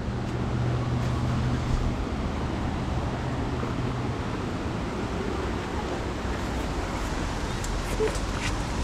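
Steady rush of flowing water from a mountain stream and waterfall, with a few light clicks near the end.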